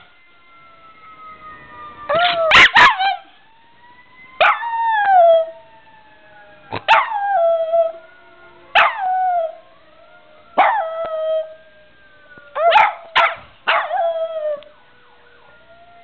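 Dog howling at a fire truck siren, about six short howls a couple of seconds apart, each sliding down in pitch, with a quick cluster near the end. A fainter siren tone winds slowly down underneath.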